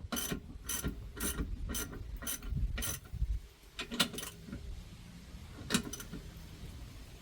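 Hand ratchet wrench clicking as it is worked back and forth on a nut of the car's suspension, about two sharp metallic clicks a second. The clicking stops about three seconds in, with two more single clicks later.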